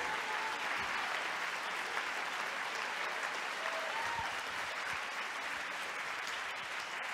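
Large lecture-hall audience applauding.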